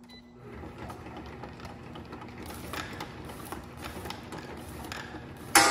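Tabletop tube labelling machine running: a steady motor hum from the conveyor and label applicator, with irregular mechanical clicks and ticks. Loud music starts abruptly near the end.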